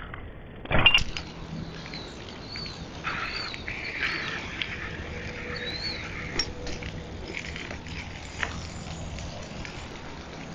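A single sharp thump a little under a second in, fitting the front wheel of a 1990 Dyno Comp BMX dropping to the concrete from a wheelie. It is followed by a few seconds of high chirps over hiss, with a faint steady hum underneath.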